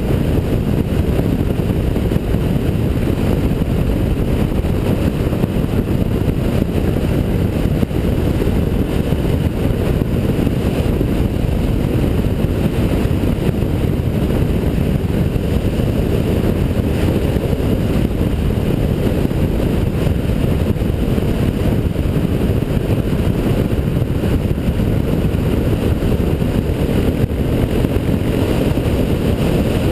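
Steady wind rush on the mount camera's microphone of a motorcycle cruising at road speed, with the bike's engine and tyre noise underneath.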